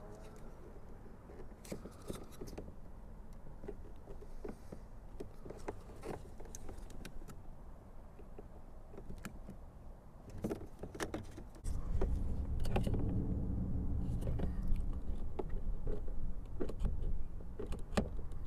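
Small plastic clicks and knocks as a replacement car wing-mirror switch is handled and pushed into its housing. About twelve seconds in, a louder steady low rumble sets in under the clicks.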